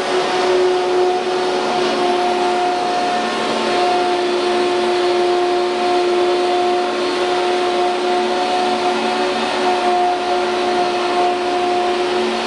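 CNC router machining center running steadily: an unchanging whine over a rushing hiss.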